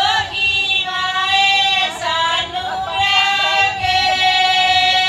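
A woman sings a Punjabi folk song through a microphone, holding long notes that waver and bend in pitch, without drum accompaniment.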